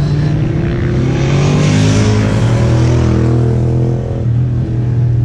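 Sport motorcycle engines running at high revs on a race circuit, the pitch rising and falling with the throttle and gear changes. The sound swells in the middle and eases off about four seconds in.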